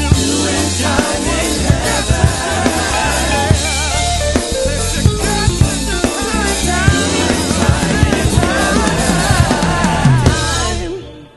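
The closing bars of a 90s-style gospel R&B song played by a full band: drum kit, bass, keyboards and wavering melody lines. The music fades out near the end.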